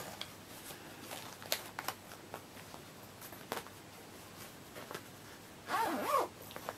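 Fabric project bags and a stitching hoop being handled, with scattered rustles and light clicks, then a zipper on a fabric bag being pulled open in one short rasp near the end.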